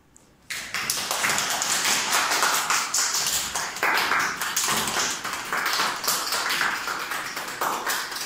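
A small group of children clapping, a dense, irregular patter of claps that starts suddenly about half a second in.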